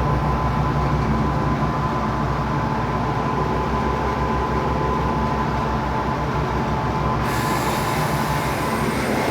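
Italianinha three-phase soft-serve ice cream machine running: its motors and refrigeration compressor hum steadily with a low pulsing and a steady tone. The motors now run properly on all three restored phases instead of humming stalled. About seven seconds in, a higher hiss joins the sound.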